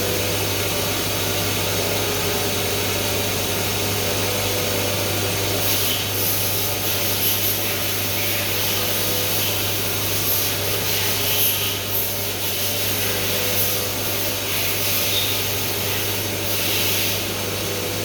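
CNC machine running with a steady machine hum. From about six seconds in, short hissing surges come and go over it.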